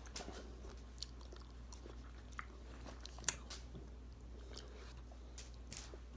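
A person chewing a mouthful of Cool Whip cheesecake close to the microphone: soft, wet mouth clicks and smacks, with one sharper click a little past the middle, over a steady low hum.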